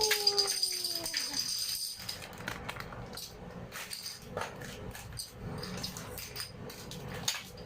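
A voice calls a falling 'woo' in the first second or so. Then come light, scattered clicks and rattles of plastic toy pieces being handled.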